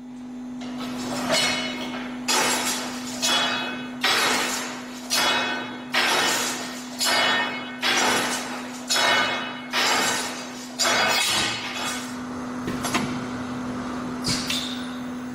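Tracto-Technik Tubotron 30 CNC tube bending machine running with a steady motor hum. Over it comes a regular series of metallic strokes, about one a second, eleven in all, followed by a few single clicks near the end.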